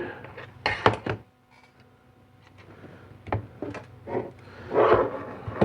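Knocks and clicks of metal parts and tools being handled while a Tuned Port Injection fuel rail is taken apart, with a louder clatter about a second in and another burst of handling noise near the end.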